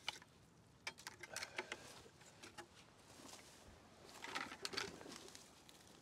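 Faint handling of a full plastic five-gallon sap bucket as it is lifted by its wire handle: light clicks and knocks about a second in, then a short rustling clatter between four and five seconds in.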